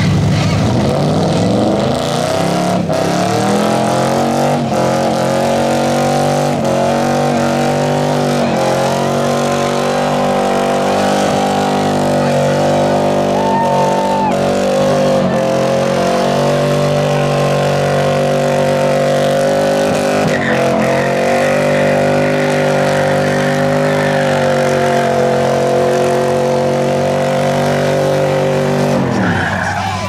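Car engine revved up to high rpm and held there at full throttle, its rear tyres spinning and squealing under the load of a tug-of-war pull. The revs drop away near the end.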